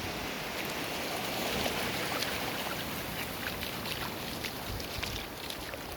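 Steady wash of ocean surf and wind noise on a beach, with faint scattered ticks.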